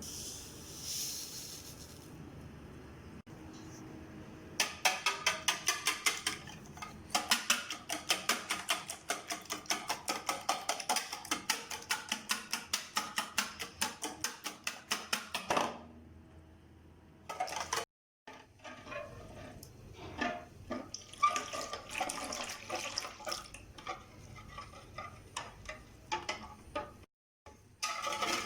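Kitchen utensils at work: a utensil strikes a bowl or board in a fast, even rhythm of about five strokes a second for some ten seconds. After a pause come irregular clinks and knocks of dishes and utensils.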